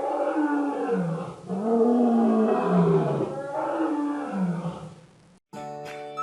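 Dinosaur (T. rex) roar sound effect: three long roars in a row, each one sliding down in pitch. Music starts near the end.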